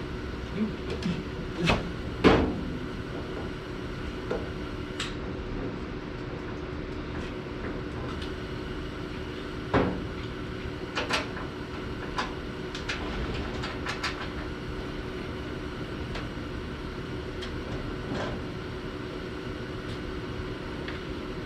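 Steady hum of the garage's background, most likely the running space heater, with scattered knocks and clunks of metal parts and cabinet pieces being handled. The loudest clunk comes about two seconds in and another near the middle.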